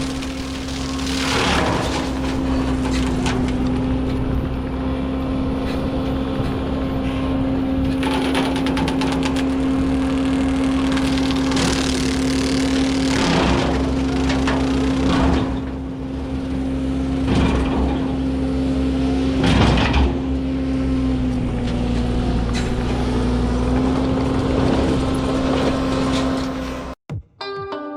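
Bobcat T750 skid-steer's diesel engine and hydraulic brush-cutter attachment running steadily with a constant hum. Repeated crashing and crackling comes through it several times as brush and small trees are cut down. It cuts off abruptly near the end.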